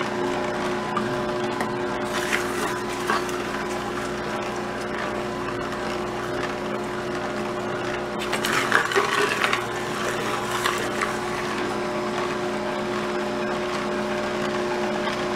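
Vertical slow (masticating) juicer running with a steady motor hum as it crushes carrot and apple pieces. About eight seconds in there is a short spell of louder crunching and knocking as more pieces go down the feed chute.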